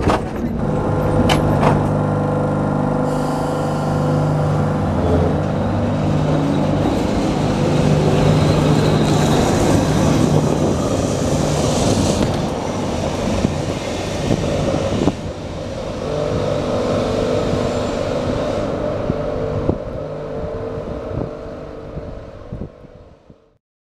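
A vintage Lisbon Remodelado tram running on its street rails: a steady electric motor hum with wheel-on-rail noise and a few sharp clicks in the first couple of seconds. It grows quieter as the tram pulls away and fades out near the end.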